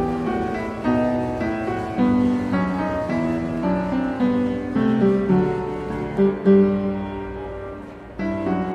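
Background music: a classical-style piece played on piano, one melodic note after another. It dips in level and a new phrase comes in loudly about eight seconds in.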